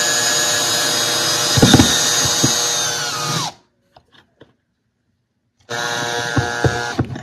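Cordless drill driving a screw through a metal curtain-rod bracket into a drywall anchor. The motor runs steadily for about three seconds, then winds down and stops. It runs again near the end, with a few sharp knocks.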